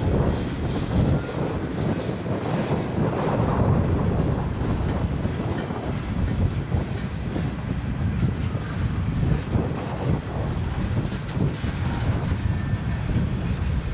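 Freight cars of a mixed freight train rolling past: a steady rumble of steel wheels on rail, with repeated clacking as the wheels cross rail joints.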